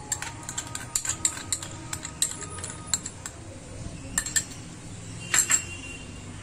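A metal spoon clinking and tapping against steel cookware as red chilli sauce is spooned out: a string of sharp clinks, some with a short metallic ring, then a louder cluster of clinks about five seconds in.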